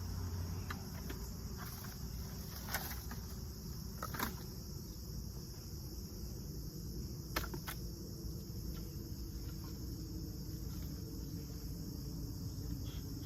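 Honeybees humming steadily around an opened hive, with a steady high insect chirring above. A few sharp clicks and knocks come in the first half.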